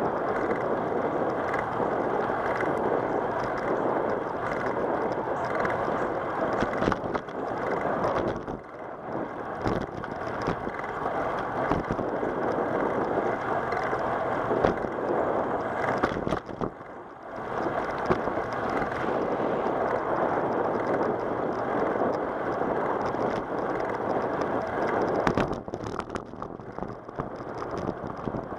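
Wind buffeting the microphone of a camera riding on a moving bicycle, mixed with tyre noise on a cracked asphalt path. It is a steady rush that eases briefly twice.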